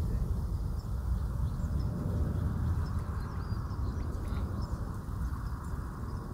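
Rolls-Royce Trent 7000 engines of an Airbus A330neo in flight at a distance: a steady, low jet rumble with a fainter hiss. A few faint bird chirps come through around the middle.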